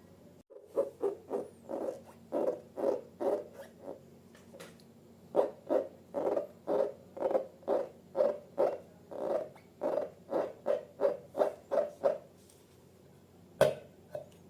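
Slime squeezed and worked by hand: a quick series of short squelchy squishes about two a second, with a pause about four seconds in and a single sharp click near the end.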